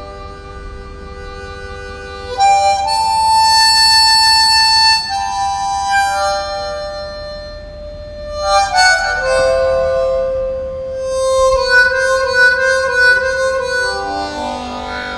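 Solo harmonica playing a slow, sad melody of long held notes.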